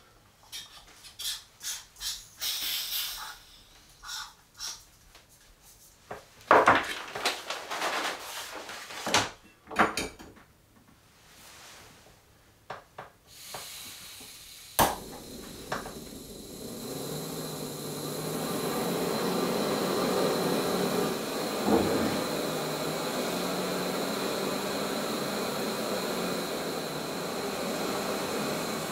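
Metal cookware and gear clinking and knocking. About halfway there is a sharp click, then a camp stove burner comes on as a steady rushing hiss that builds over a few seconds and holds.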